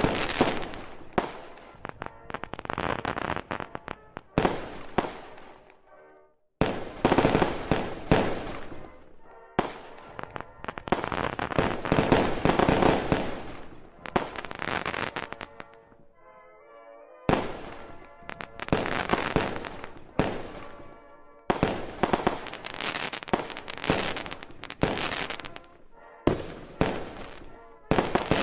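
Aerial fireworks display: shells bursting in repeated sharp booms, with crackling after them, in clusters a few seconds apart and brief lulls about six and sixteen seconds in.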